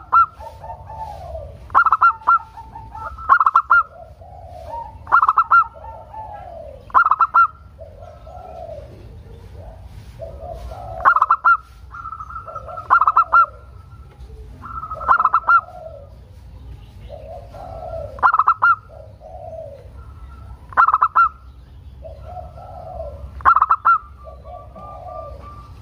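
Zebra dove (perkutut) singing its cooing song. Short, loud, high notes come every two seconds or so, linked by lower rolling coos.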